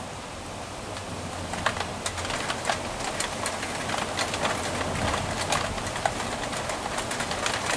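Heavy rain falling steadily, with sharp, irregular ticks starting about a second and a half in, which the uploader wonders may be small hail striking.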